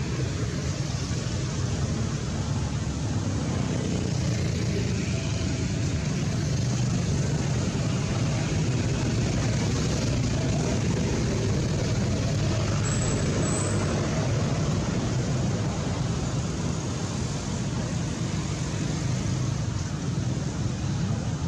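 Steady low rumble of road traffic noise at an even level.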